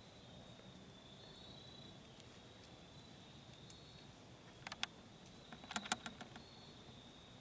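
Steady high-pitched insect drone, with a short cluster of sharp crackles and snaps about five to six seconds in.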